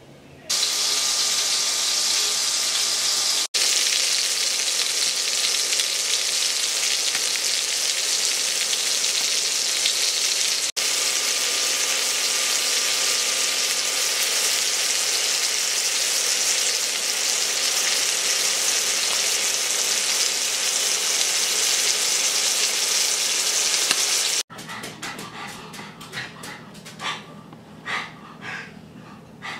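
Dry-aged rib steak sizzling in a hot pan: a loud, steady frying hiss that drops out for an instant twice and stops suddenly about 24 seconds in. A much quieter stretch of irregular soft ticks follows.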